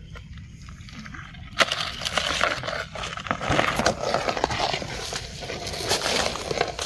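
Dry leaf litter crunching and rustling underfoot, starting with a sharp click about one and a half seconds in and going on as dense, irregular crackling.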